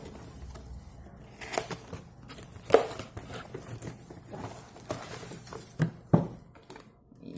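Packaging being handled while a product is unboxed: faint rustling with a few sharp knocks, the loudest a little under three seconds in.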